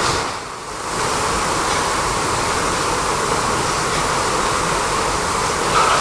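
Steady rushing background noise inside an intensive pig house, dipping briefly about half a second in.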